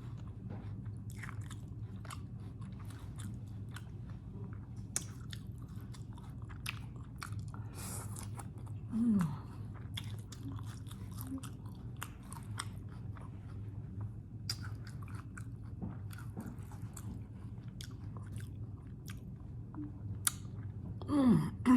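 Close-miked chewing of a crunchy hard-shell taco, with irregular crisp crunches and bites throughout over a faint steady low hum.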